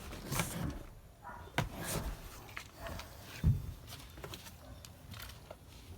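A loose car seat being worked out of a Toyota Revo's cabin: a series of separate knocks and bumps as it shifts against the floor and the body, the loudest about three and a half seconds in.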